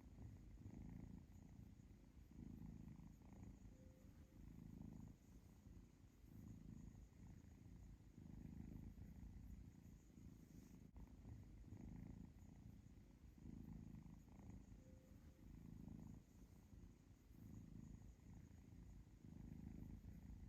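A kitten purring softly and steadily. The purr swells and eases about once every second or so, with each breath in and out.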